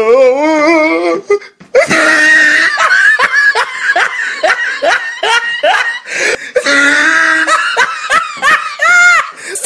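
Loud human laughter in quick repeated ha-ha bursts, opening with a wavering drawn-out laugh and briefly breaking off just before two seconds in.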